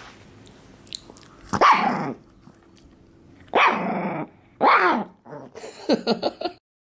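Pomeranian giving three loud, growly barks with falling pitch, then a quick run of shorter sounds near the end. She is warning her owner off the chew stick he pretends to take: guarding her treat.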